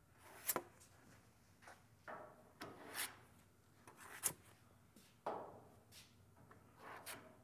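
Plastic spreader scraping body filler into the seam between a trunk lid and the body: a series of short, faint scrapes with a few sharp clicks.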